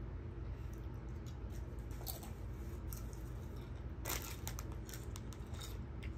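Eating sounds: scattered crisp crunches and crinkles, thickest about four seconds in, over a low steady hum.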